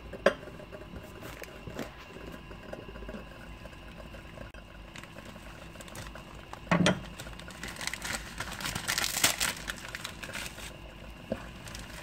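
Kitchen handling sounds: scattered light clicks, a single knock about seven seconds in, then a few seconds of dense crinkling and crackling as ingredients and packaging are handled.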